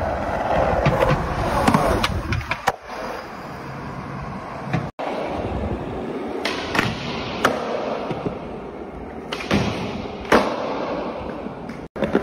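Skateboard wheels rolling on smooth concrete, broken by several sharp clacks of the tail popping and the board landing during flatground tricks. The sound cuts off abruptly twice as one clip gives way to the next.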